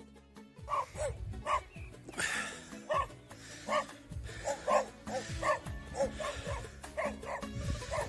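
A dog barking over and over, a bark roughly every three-quarters of a second, over background music.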